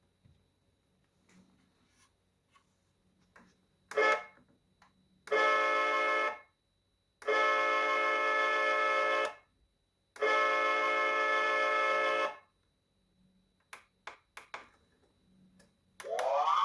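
The small speaker of an ECTO-1 scale model's sound board plays three long, steady horn blasts, each about two seconds, with short pauses between them and a few clicks before and after. Near the end a siren wail starts, rising in pitch.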